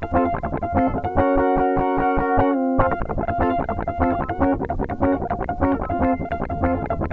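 Background music: a guitar-led piece with a distorted, effects-laden tone over a steady rhythmic bass pulse.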